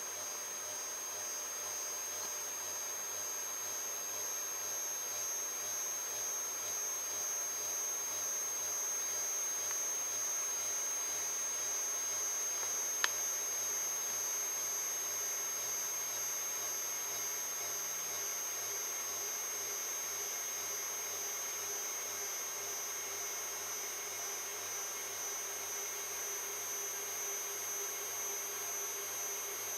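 Protomaker 3D printer's Z-axis stepper motors driving the carriage down slowly on its threaded rods during a homing move, a steady electronic whine with a low hum beneath. A single sharp click sounds about 13 seconds in.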